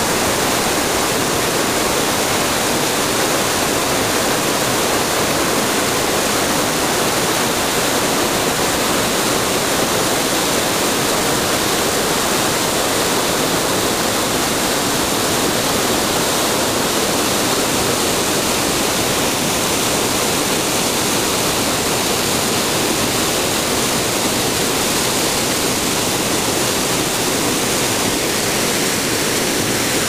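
A tall waterfall in heavy flow, plunging down a cliff into a rocky pool: a loud, steady rush of falling water that does not let up.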